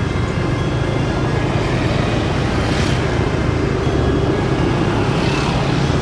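Steady road-vehicle rumble, with two swells of noise about three seconds in and again near the end.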